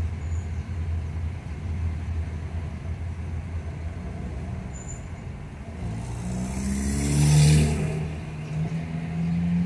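Car driving, a steady low engine and road hum, then about six seconds in the engine note climbs as the car accelerates, with a louder rush of noise peaking a little after that before the engine settles into a steady higher note.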